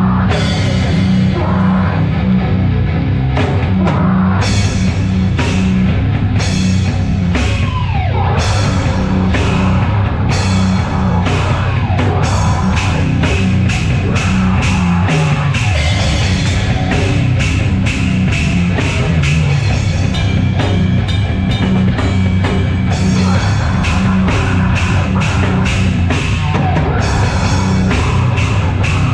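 Live heavy metal band playing loud, with distorted instruments and a pounding drum kit.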